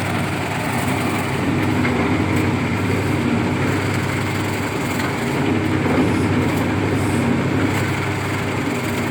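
Electric bread-slicing machine running, a steady mechanical hum that holds level throughout.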